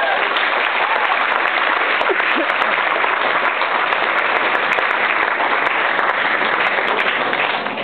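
Audience applauding steadily, then dying away quickly near the end.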